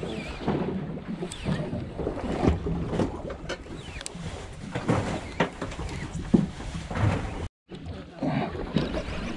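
Wind and water noise on a small boat at sea, with irregular knocks and rustles from gloved hands working a slow-pitch jigging rod and reel. The sound cuts out completely for a moment about three-quarters of the way through.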